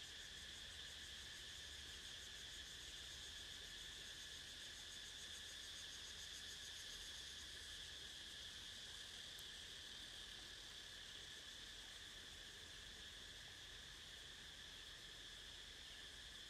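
Faint, steady shrill chorus of insects, a constant high buzz, with a faster pulsing layer above it for a few seconds in the first half.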